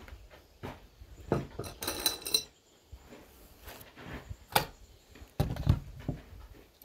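Steel deck screws rattling and clinking inside their cardboard box as it is picked up and handled, about two seconds in. Scattered knocks and thuds of workshop handling before and after, the heaviest a little over five seconds in.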